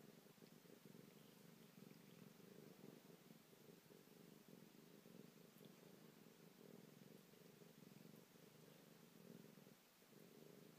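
Domestic cat purring steadily and faintly, with a brief break in the purr near the end.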